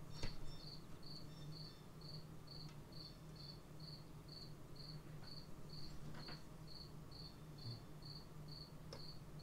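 A cricket chirping steadily, about two high chirps a second, over a low steady hum, with a few faint clicks from the chainsaw's carburetor parts being fitted by hand.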